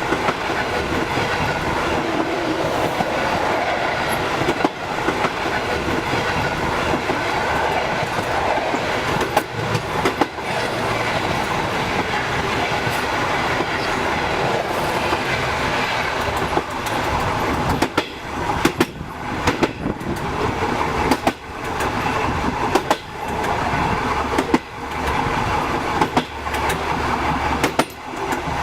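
Train running on the rails: a steady rumble with the clickety-clack of wheels over rail joints. The knocks come more distinctly and more often in the second half.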